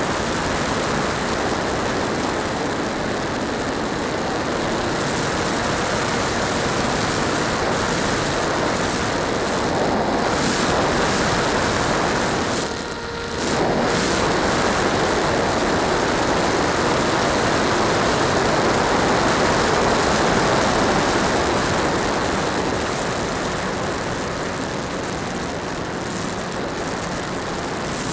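Onboard sound of an HK Skipper electric RC floatplane in flight: its electric motor and propeller running steadily under a heavy rush of wind over the camera. The sound dips briefly about halfway through.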